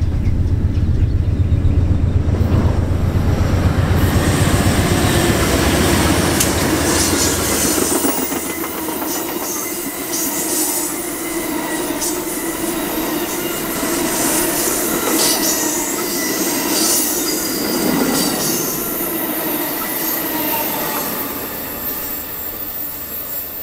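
Amtrak passenger train passing close by: the diesel locomotive's low engine rumble for the first several seconds, then the double-deck Superliner cars rolling past. The wheels squeal against the rails on the curve and click over the rail joints, fading near the end.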